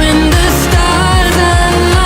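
Background pop music with a steady beat and a sustained melody.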